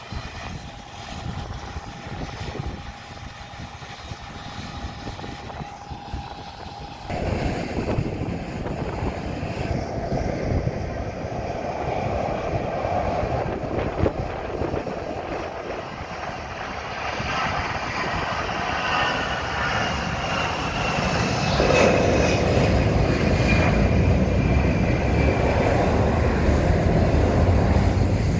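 Jet airliner taking off: its engines at take-off power, the noise swelling as it accelerates down the runway and climbs away, with a high whine slowly falling in pitch. For about the first seven seconds, quieter airport apron noise with a steady hum comes before it.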